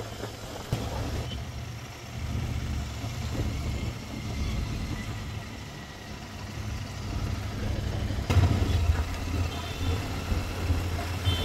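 Royal Enfield Continental GT 650's parallel-twin engine running as the motorcycle rides along, with a steady low rumble that grows louder about eight seconds in. A short high tone sounds a couple of times near the end.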